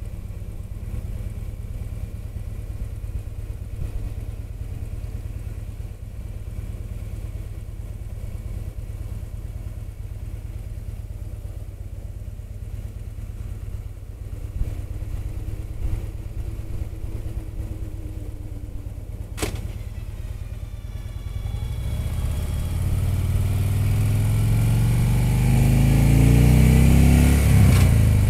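Motorcycle engine running steadily at low revs while riding. About three-quarters of the way through there is one sharp click, and then the engine revs up as the bike accelerates, with wind noise rising.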